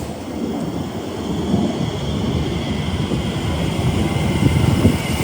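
Deep rumbling of a train running through the station, slowly building, with a rising rail hiss joining it about a second and a half in. Wind buffets the microphone.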